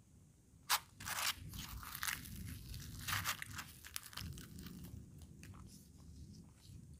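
A fried puri being torn apart by hand, close to the microphone: a sharp crack about a second in, then a run of crisp crackling and crunching that tails off into smaller crackles.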